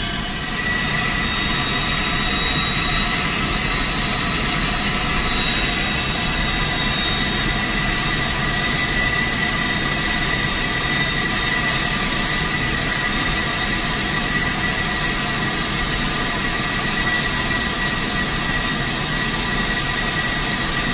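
Steady whine and rush of a Honeywell TFE731 turbofan at idle, heard from inside a corporate jet's cockpit, slightly louder from about a second in. A right-engine start is under way but the engine barely turns and never lights: the start sequence cuts off after about five seconds.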